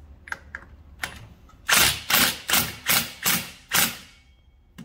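Cordless impact driver hammering the clutch-bell nut tight on a Yamaha Zuma 50 scooter's Minarelli transmission, in six short trigger bursts about 0.4 s apart, starting about two seconds in. Before that, a few light clicks as the socket is seated on the nut.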